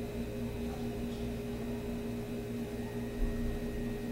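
Steady electrical hum with several constant tones over a low drone and faint room noise.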